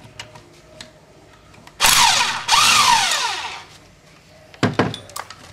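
A handheld power driver spinning bolts out of a bracket on a transmission case: two short runs starting about two seconds in, each falling in pitch as it winds down, followed by a few sharp metal clicks near the end.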